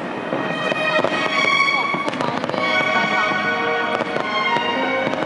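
Fireworks bursting and crackling in rapid succession, many bangs overlapping, with music playing at the same time.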